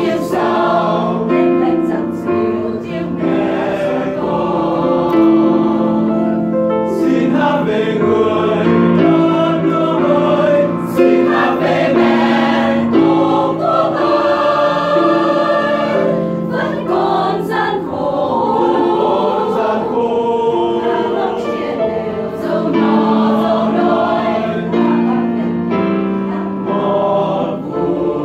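A mixed choir singing a Vietnamese choral song in sustained chords, with piano accompaniment.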